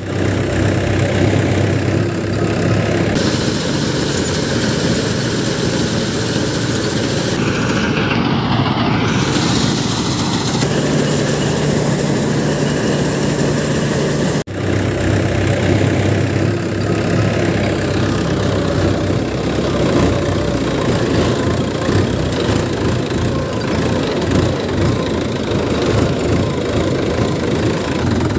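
Sonalika DI-60RX harvester's diesel engine and machinery running steadily under load, with a brief drop in the sound about halfway through.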